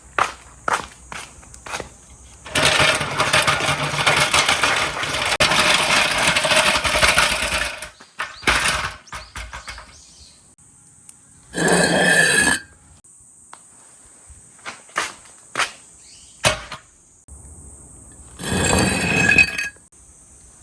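Marbles rolling and clacking through a handmade marble-run course: sharp clicks as marbles strike the track, a long rolling rumble lasting several seconds, and two shorter loud rattling runs later on.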